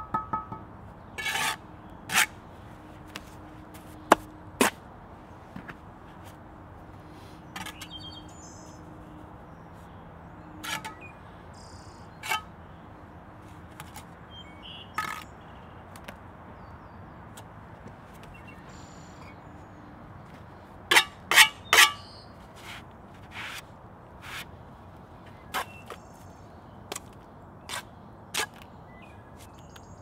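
Bricklaying by hand: a steel trowel scraping mortar and clicking and knocking against bricks, in sharp strokes scattered through, with a quick run of four loud knocks about two-thirds of the way in.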